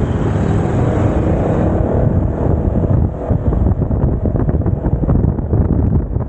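Wind buffeting the microphone of a riding maxi-scooter, over a steady low rumble of engine and road. A faint engine note rises through the first two seconds as the scooter accelerates.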